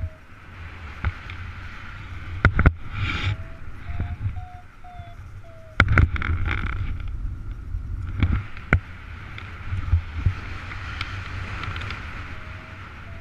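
Airflow rushing over the microphone of a paraglider in flight, with a steady low rumble, and several sharp knocks and rustles from the harness and risers. Twice, for a second or two, a paragliding variometer sounds a run of short beeps, its pitch rising and falling slightly: the signal for rising air.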